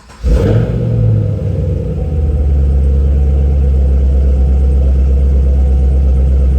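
2014 Chevrolet Camaro ZL1's supercharged 6.2-litre V8 firing up: it catches about a quarter second in, flares up in revs, then settles into a steady, loud idle about two seconds in.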